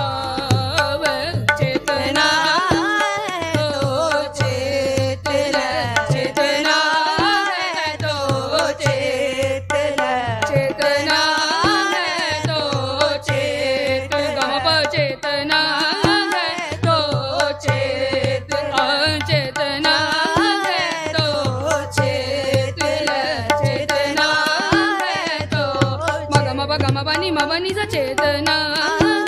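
Sikh Gurbani kirtan: a harmonium's sustained reedy chords and a tabla's steady rhythmic strokes accompanying a voice singing a shabad.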